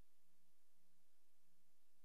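Near silence: a faint, steady hiss with a low hum, the background noise of a silent newsreel transfer with no soundtrack.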